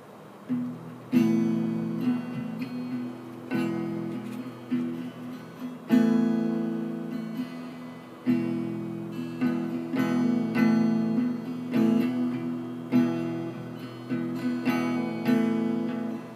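Acoustic guitar strummed, starting about half a second in, with chords ringing between strokes and a hard accent every couple of seconds: the instrumental intro of a song before the singing begins.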